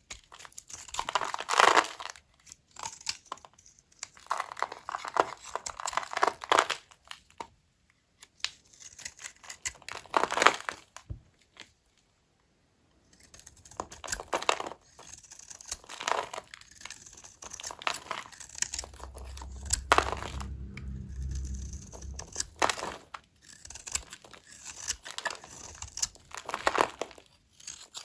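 A knife cutting through small bars of dry, aged soap: repeated bursts of crisp crackling and crunching as the blade slices and shaves, with brief pauses between cuts and a short silent gap near the middle. A low rumble sounds for a couple of seconds about two-thirds of the way through.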